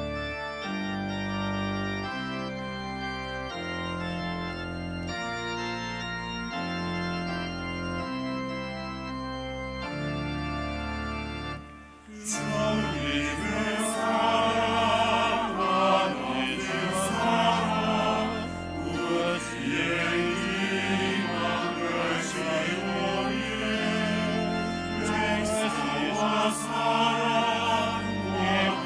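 Organ playing slow, sustained chords that change about once a second; about twelve seconds in, a choir begins singing with the organ, and the music grows louder.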